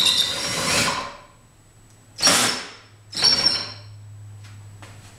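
A power drill driving a 3D-printed planetary-gear spool winch in three bursts, one about a second long and two shorter ones, hoisting a kayak. A steady low hum follows the last burst.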